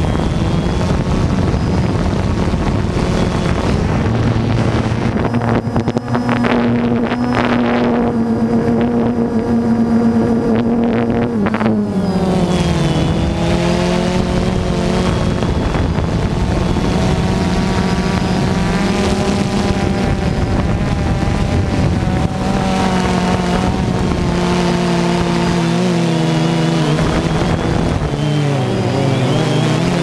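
DJI Phantom 2 quadcopter's electric motors and propellers droning steadily, heard from the camera on board. The pitch dips and comes back up about twelve seconds in and again near the end as the motors change speed.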